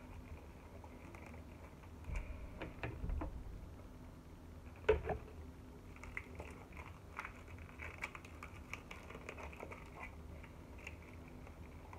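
Fingers picking and scratching at packing tape on a cardboard box, with the cardboard rubbing and knocking. A few louder knocks come about two, three and five seconds in, then a run of small, quick clicks and scratches.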